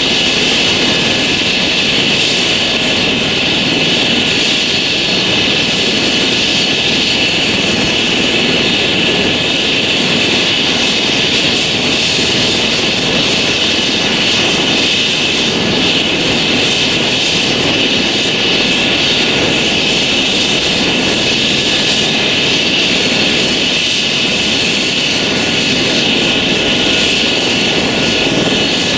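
Airbus Helicopters H135's twin turbine engines and rotor running, loud and steady, with a high turbine whine that does not change.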